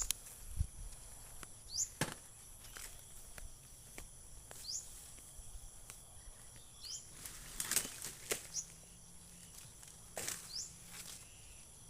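Outdoor field ambience: insects keep up a steady high-pitched drone while a bird repeats a short upward-sweeping whistle every two seconds or so. A few scattered clicks and knocks are heard now and then.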